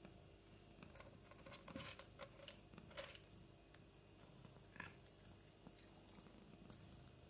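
A cat crunching dry kibble: a few faint, irregular crunches, most in the first three seconds and one more about five seconds in.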